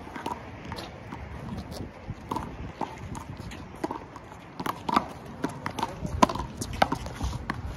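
Small rubber handball smacked by hand and slapping off a concrete wall and court floor during a rally, a string of sharp irregular smacks mixed with sneakers tapping and scuffing on concrete. The smacks come thicker and louder past the middle.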